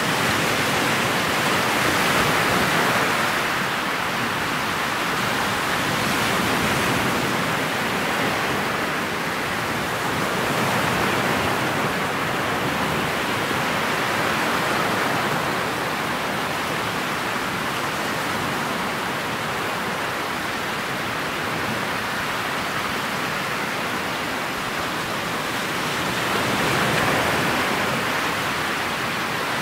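Steady rush of wind and water at the bow of a motorboat under way, a noisy hiss with no engine tone showing through, swelling and easing every few seconds.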